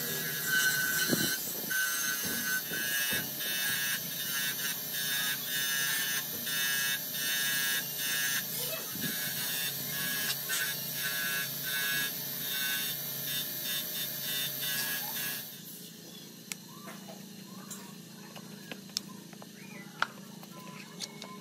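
A bench grinder running a wire cup brush against a rusty metal part, a steady high hiss whose scraping swells and fades as the part is turned against it. It stops abruptly about 15 seconds in, giving way to quieter scraping and a few clicks as a small brush scrubs a chainsaw's handle frame in a tray of liquid.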